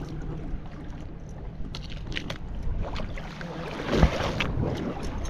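Water splashing and sloshing against the side of a small boat as a freshly caught tuna is held over the gunwale at the waterline to bleed out, with a few light clicks about two seconds in and a louder splash or knock about four seconds in.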